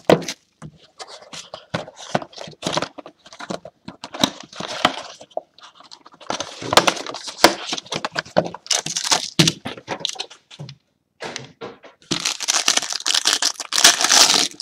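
Sealed box of trading cards being unwrapped by hand: plastic wrap crinkling and tearing in irregular crackly bursts, with sharp clicks and knocks from the cardboard box and inner package.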